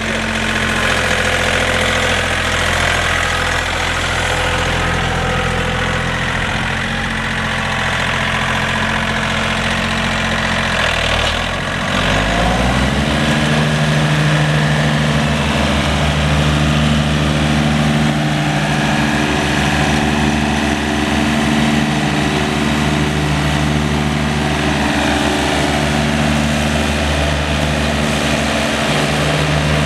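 John Deere 3720's three-cylinder turbo diesel engine running steadily at a low speed, then revved up about twelve seconds in and held at a higher, steady speed.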